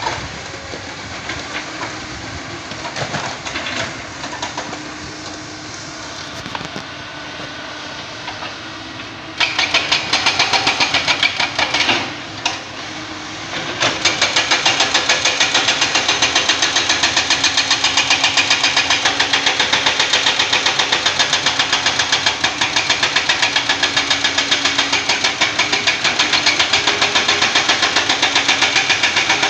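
Hydraulic excavators working a rock slope, their diesel engines running under load. About nine seconds in, a loud, rapid, even knocking starts, breaks off briefly, then runs on steadily.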